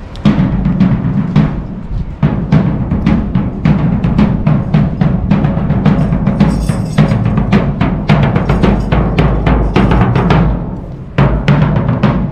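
Military marching drums beating a steady, rapid march rhythm, with a brief lull near the end before the beat resumes.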